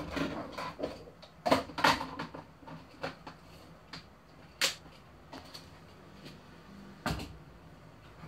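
Scattered sharp knocks and clicks at irregular intervals: a cluster in the first two seconds, then single ones, with a louder one a little after halfway and another near the end.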